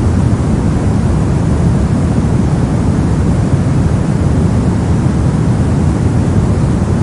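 Brown noise: a steady, deep rumbling hiss with its energy in the lows, unchanging throughout.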